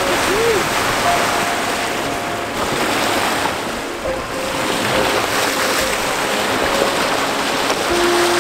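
Water rushing and splashing along the bow of a moving sailboat as it cuts through the sea, with some wind. The sound is a steady wash.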